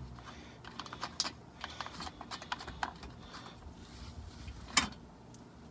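Light, irregular clicks and taps of fingers hand-threading bolts into a car's plastic underbody service panel and handling the panel, with one sharper click near the end.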